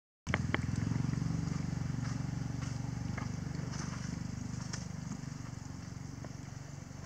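A low, steady motor engine drone that starts just after the beginning and slowly fades, with scattered faint clicks over it.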